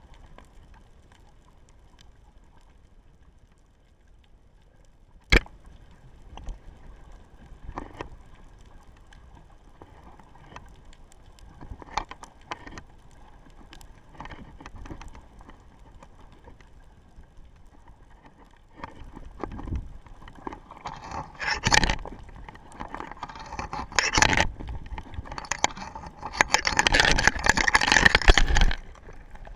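Underwater sound picked up by an action camera lying on the seabed: scattered clicks and knocks, one sharp click about five seconds in. From about two-thirds of the way through come louder, denser scraping and knocking, loudest near the end, as the camera is shifted about on the sand.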